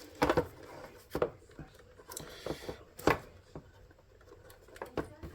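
Scattered light clicks and taps with a short rustle: small plastic switch parts and wire being handled and fiddled with.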